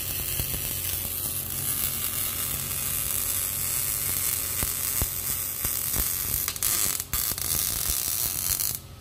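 MIG welder arc sizzling steadily as a steel roll-cage mounting plate is welded to a car's floor pan, breaking off briefly about seven seconds in and stopping just before the end. A steady low hum runs underneath.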